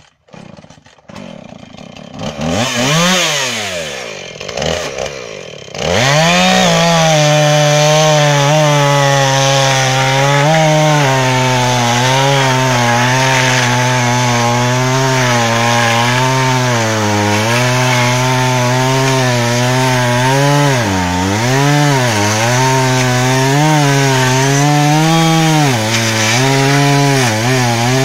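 Husqvarna 445 two-stroke chainsaw starting up: uneven and brief revs at first, then it catches fully about six seconds in. It then runs at high revs cutting through a stack of logs, its engine speed dipping several times as the chain bites into the wood.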